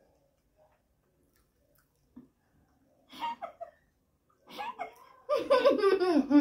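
Near quiet for about three seconds, then a woman's voice breaking into giggling and laughter, loudest near the end.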